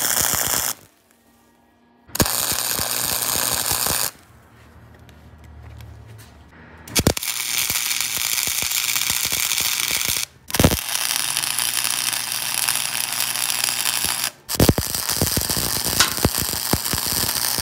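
MIG welder arc crackling steadily as steel bumper plates are tacked and welded together, in five runs of a few seconds each. The runs are broken by short pauses, the longest a few seconds in, where only a faint low hum remains.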